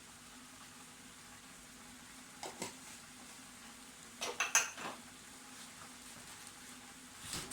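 A spoon clinking against a cooking pot while stirring: one knock about two and a half seconds in, a quick run of clinks around the middle, and one more near the end.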